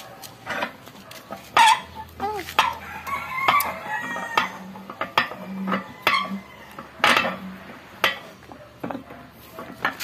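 Repeated metal clinks and knocks as a gearshift servo housing is handled and worked on in a steel bench vise, with a rooster crowing in the background.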